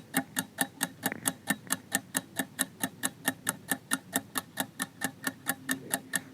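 Steady clock-like ticking, about four ticks a second: a quiz countdown timer running while the answer is awaited.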